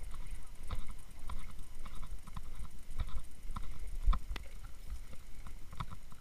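Walking footsteps, a dull thump a little under twice a second, with a diver's scuba gear clicking and knocking in time with each step.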